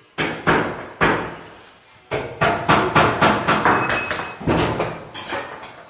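Hammer blows on stainless-steel sheet: three hits, then a quick series of about three a second from about two seconds in, one of them ringing with a high metallic tone.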